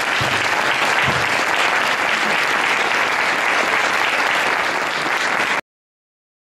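Audience applauding steadily, the clapping cut off abruptly about five and a half seconds in.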